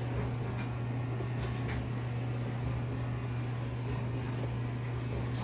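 Steady low mechanical hum, like a running fan or motor, with a few faint handling clicks.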